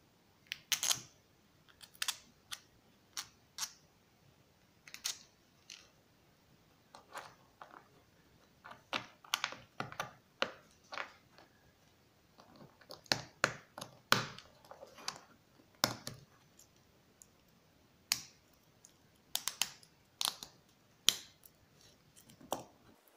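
Irregular clicks, taps and light knocks of hand-held 3D-printed plastic gearbox parts and small steel pins being handled and pushed together, a few sharp clicks at a time.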